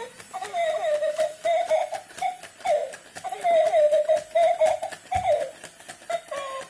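Battery-operated crawling baby doll toy playing its electronic baby giggling and babbling sounds, high and wavering, over frequent light clicks, with a low bump about five seconds in.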